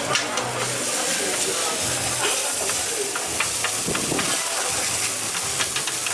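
Raw beef burger patties sizzling steadily on a hot flat-top griddle, with a few light clicks and scrapes of the metal scraper against the plate as the patties are scored.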